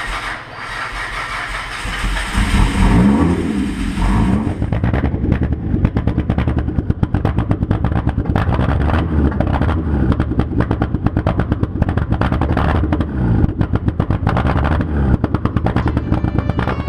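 Hyundai Tiburon's engine running from about two seconds in, its revs rising and falling several times. It runs unevenly, which the check-engine light puts down to a bad crankshaft position sensor.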